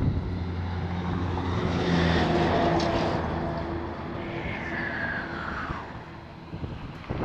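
A motor vehicle passing by on the road alongside: its engine swells to a peak about two seconds in and fades away, with a whine that slides down in pitch as it goes.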